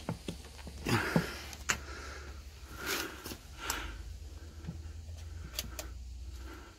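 Scattered sharp clicks and knocks from a power plug being pushed into a socket and the stereo's controls being pressed, with a few short breaths or sniffs. A steady low hum runs underneath.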